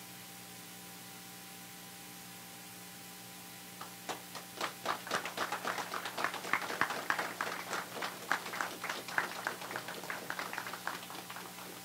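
A small group applauding, starting about four seconds in and dying away near the end, over a steady electrical hum.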